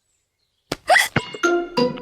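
A cartoon piglet's hiccup, a sudden squeaky 'hic' that rises in pitch about two-thirds of a second in, followed by a few short held musical notes.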